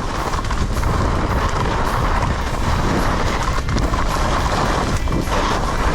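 Icelantic Nomad 95 wood-core skis running fast on packed snow. Their edges make a steady hiss and scrape, and wind buffets the microphone.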